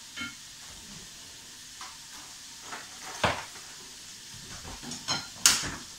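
Sliced chicken sizzling in butter in a frying pan, a faint steady hiss. A few sharp knocks and clacks of the wooden spatula and utensils against the pan break in, one a little past halfway and the loudest near the end.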